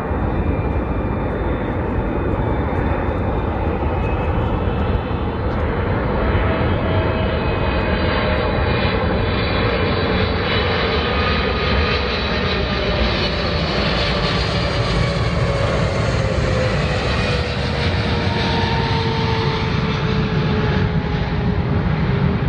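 Airliner's jet engines passing on a landing approach: a steady roar with whining tones that slide down in pitch as it goes by, loudest about two-thirds of the way through.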